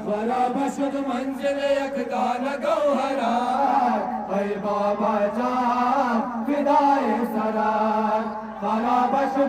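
A noha, a Shia mourning elegy, being chanted in long, drawn-out melodic lines that run on without a break.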